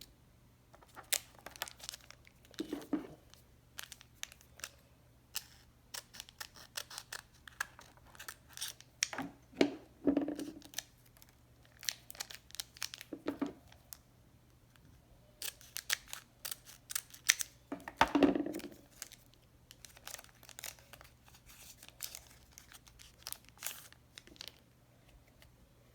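Packaging being torn open and crinkled by hand in irregular crackling bursts, with a few heavier rustles, the loudest about eighteen seconds in.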